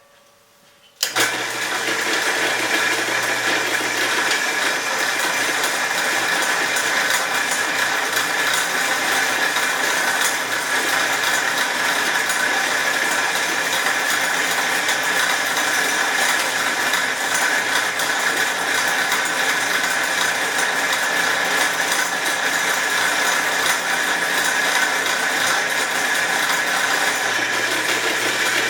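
Drill press switched on about a second in and running steadily, its bit cutting through thick steel plate kept wet with cutting fluid.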